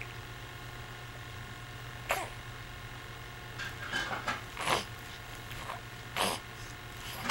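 Newborn baby making a few short snuffling, sneeze-like noises and grunts: one about two seconds in, several around four to five seconds, another near six seconds, and the loudest at the very end, over a steady low hum.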